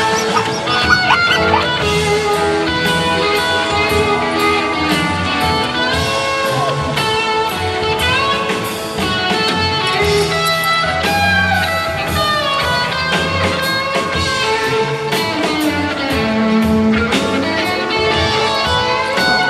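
Background instrumental music led by guitar, with note bends.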